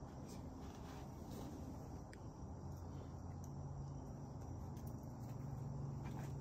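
Faint woodland ambience: insects trilling steadily high up, under a low steady hum that grows a little louder about halfway through, with a few faint ticks.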